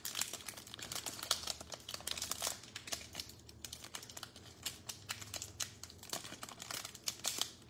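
Foil trading-card pack wrapper crinkling and crackling in irregular clicks as fingers work at its sealed end to open it.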